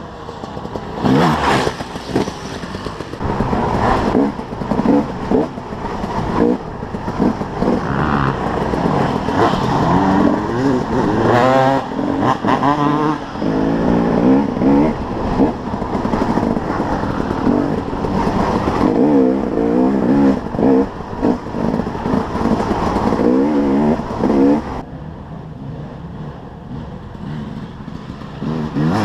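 2011 KTM 300 XC-W's two-stroke single-cylinder engine being ridden hard off-road, the revs rising and falling over and over as the throttle is worked. About 25 seconds in it settles to a quieter, lower run.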